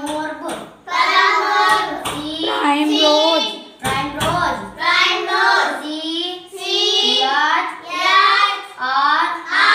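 A child chanting in a sing-song voice: short pitched phrases that rise and fall, one after another about once a second.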